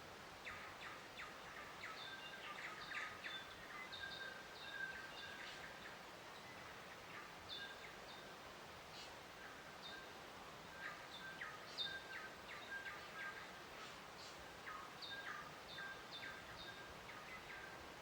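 Faint birdsong: small birds chirping in many short notes, scattered irregularly through the whole stretch over a soft, steady background hiss.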